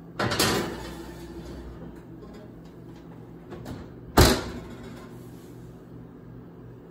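Glass baking dish slid onto a metal oven rack, a scraping clatter that fades over about a second. About four seconds in, the oven door shuts with one sharp knock.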